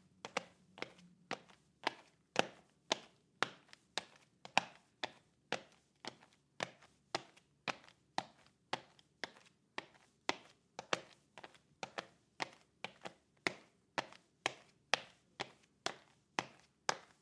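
Footsteps of shoes walking on a brick floor at a steady pace, about two crisp steps a second.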